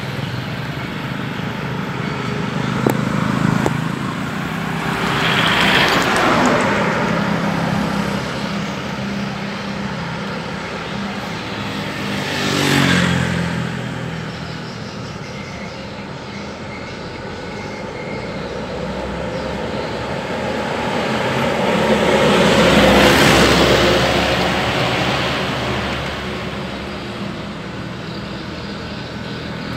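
Road traffic passing: several vehicles go by close, loudest about six, thirteen and twenty-three seconds in, over a steady low engine hum.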